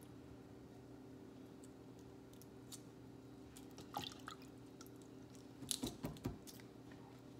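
Small wet clicks and taps of a hard-boiled egg being peeled by hand and dipped in water, with a few louder soft knocks about six seconds in, over a steady low hum.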